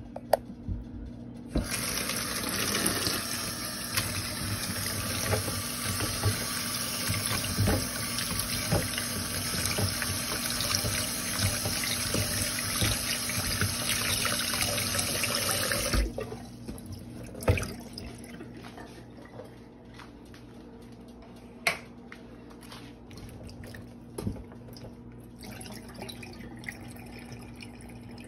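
Kitchen faucet running into a glass bowl of shrimp in a stainless steel sink as a hand swishes the shrimp about to rinse them. The tap comes on about two seconds in and is shut off sharply about halfway through, followed by a few light knocks.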